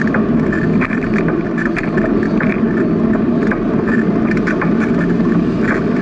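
Steady noise of riding a bicycle along a paved path: wind on the microphone and tyre noise, with many light rattling clicks from the bike and its mount.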